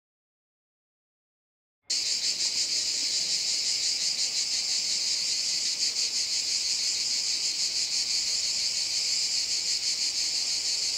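Silence, then about two seconds in a steady, high-pitched insect chirring, cricket-like, cuts in abruptly and carries on unbroken with a fine rapid pulsing.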